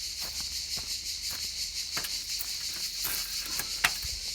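A trowel working wet concrete into wooden shuttering: scattered short scrapes and taps over a steady high chirring of insects.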